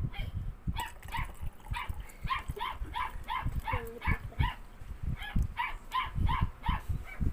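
A small dog yapping over and over, about three short barks a second, with a brief pause past the middle.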